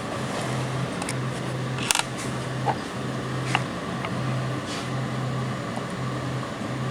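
A few light clicks and taps of small metal parts, such as screws, being handled, over a low steady hum that keeps cutting in and out about every half second.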